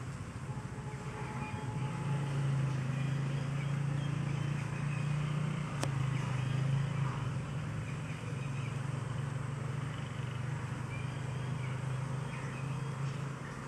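An engine running steadily with a low hum, with faint bird chirps above it.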